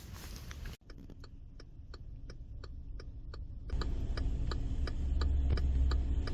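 Regular ticking, about three ticks a second, over a steady low hum. A low rumble grows louder about four seconds in.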